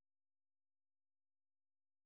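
Silence: the audio track is empty.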